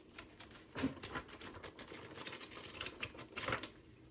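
A thick paper user manual being handled and leafed through: pages rustling with light clicks and knocks, louder about a second in and again near the end.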